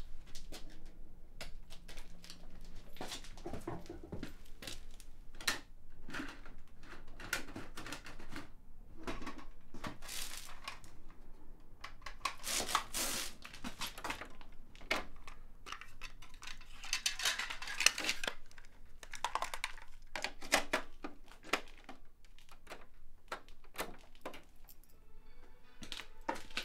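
Small metal parts and tools clinking, rattling and scraping on a workbench as a broken toaster is tinkered with, in irregular clicks and knocks with a few longer rasping stretches.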